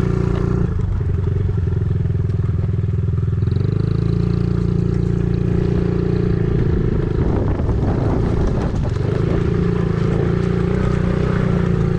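An engine running steadily, its pitch shifting about a second in and again near four seconds.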